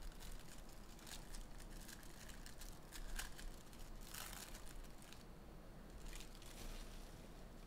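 Plastic wrapper of a trading-card pack being torn open and crinkled as the cards are slid out, faint throughout. The loudest crinkles come about three and four seconds in, and it goes quieter after about five seconds.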